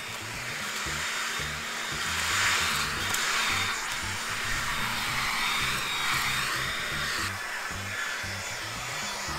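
Cordless battery leaf blower blowing a steady rush of air, swelling louder about two seconds in, over background music with a repeating bass line.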